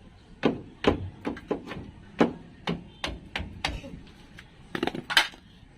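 A hammer striking a brake caliper: about a dozen sharp, irregular blows, with the two loudest coming close together near the end.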